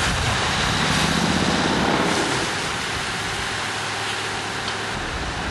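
Boat engine running steadily, mixed with a steady rushing hiss.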